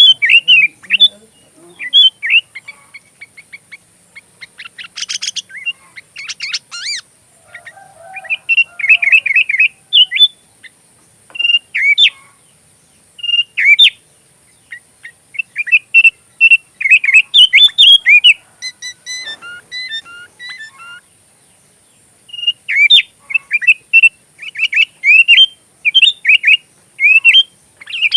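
Sooty-headed bulbul song: phrases of short, sharply rising and falling whistled notes with brief pauses between them. The song is mixed with phrases learned from an oriental magpie-robin, including a rapid run of higher clicking notes a few seconds in.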